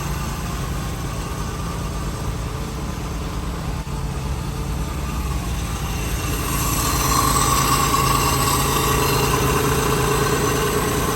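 1995 Toyota 4Runner's 3.0 V6 engine running steadily. It grows louder about six and a half seconds in.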